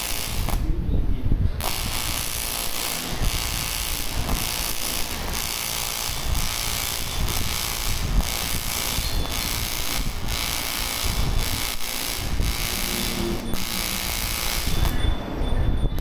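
AC TIG welding arc on aluminium, a steady buzzing crackle that cuts out briefly twice, about a second in and near the end.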